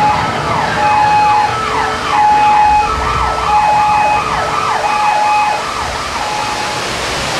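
Emergency sirens from the earthquake ride's effects, fast rising and falling sweeps with a steady tone that repeats about every second and a half, over the rush of flood water pouring through the set. The sirens fade about six seconds in.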